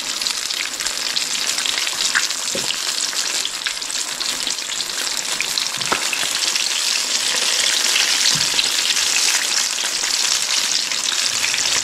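Skin-on, cornmeal-coated crappie pieces frying in hot grease in a cast iron frying pan: a steady sizzle full of fine crackling, with a few sharper pops.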